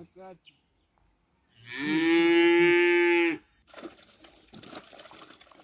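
A cow mooing: one long, even call lasting about two seconds, starting about one and a half seconds in.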